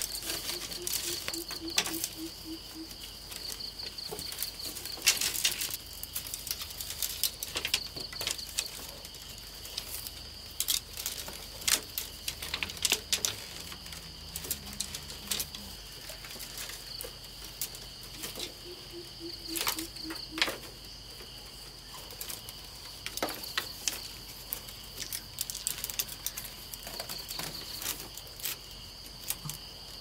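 Thin wooden sticks clicking and knocking against each other and the pole frame as they are laid and tied into a stick bed, in irregular taps and rattles. Crickets trill steadily underneath, and a low pulsing trill sounds briefly twice.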